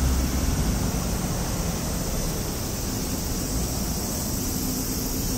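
Steady rushing noise of street traffic, with a low rumble from a passing vehicle fading in the first half second.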